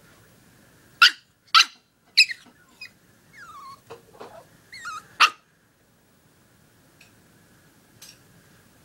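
Small black-and-tan puppy yapping: a quick run of four sharp, high barks about half a second apart, then whining calls that slide down in pitch, and one last loud bark about five seconds in.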